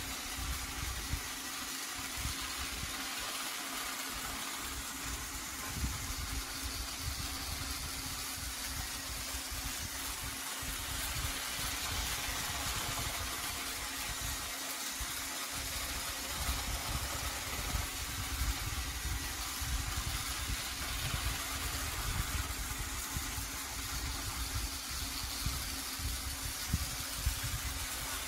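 Battery-powered Trackmaster Bertram toy engine running on plastic track: a steady motor hum over a low, uneven rumble.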